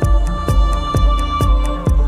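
Electronic background music with a steady kick drum about twice a second over a sustained bass and held synth tones.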